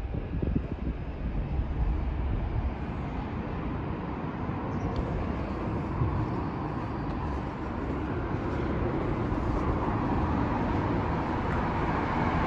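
Steady road traffic noise with a low rumble, growing a little louder in the last few seconds.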